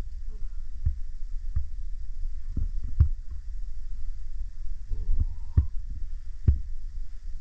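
A steady low rumble with about six irregular dull thumps, the loudest three near the middle and end.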